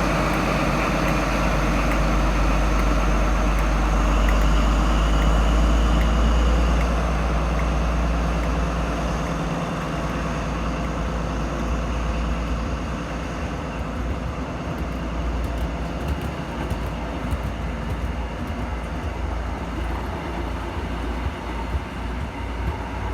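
Class 43 HST diesel power car pulling away. Its engine runs with a high whine over it, strongest for the first several seconds, then eases and fades as the train moves off. Regular knocks come in near the end.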